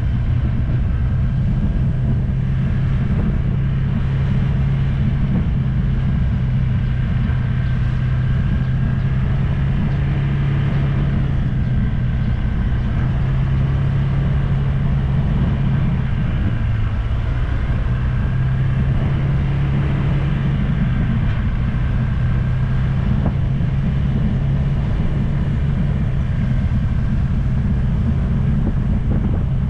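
Motor scooter engine running steadily at cruising speed while riding, a constant low hum with a slight dip in pitch about halfway through, over road noise.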